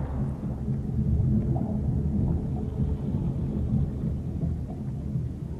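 Low, muffled underwater rumble of sea water, steady throughout.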